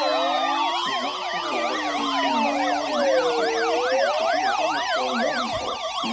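Several sirens sounding at once and overlapping. A slow wail rises and falls every few seconds beneath quicker, higher yelping sweeps.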